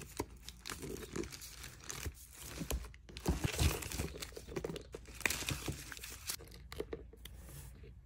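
Clear plastic packaging wrap crinkling and rustling as a small bag and its wrapped strap are handled, with scattered short clicks throughout.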